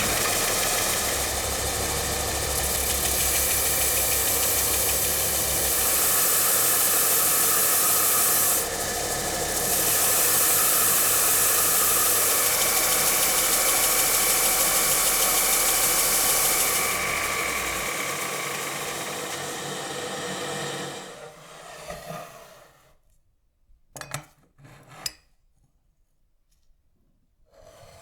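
An electric power tool runs steadily with a motor hum under a loud abrasive hiss, briefly easing about eight seconds in. It winds down over a couple of seconds about 21 seconds in. A few short scraping strokes follow near the end.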